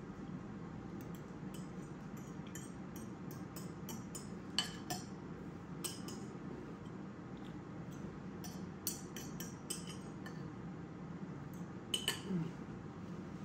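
Metal fork clinking and scraping against a ceramic plate while eating, in scattered light taps, with a few sharper clinks about five seconds in and again near the end. A steady low hum runs underneath.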